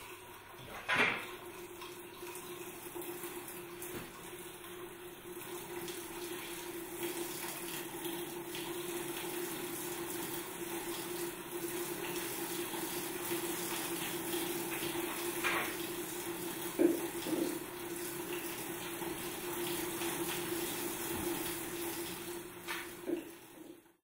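Water running steadily, with a steady hum underneath and a few short knocks.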